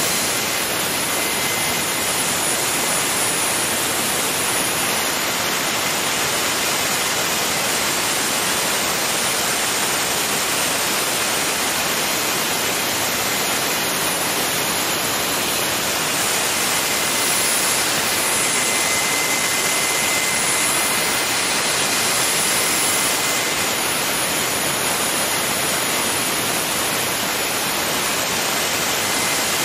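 Garrett GTCP85 gas-turbine auxiliary power unit running steadily under electrical load, its alternator lighting a bank of bulbs: an even rush of turbine noise with a faint high whine through it.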